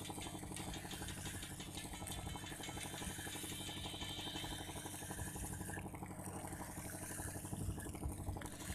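The boat's lamp generator engine running steadily with an even hum.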